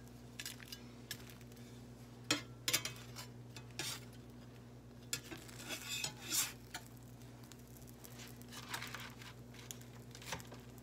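A spatula scraping and knocking against a nonstick skillet as grilled sandwiches are slid out of the pan, in a scatter of sharp clicks and short scrapes, the loudest knocks a couple of seconds in.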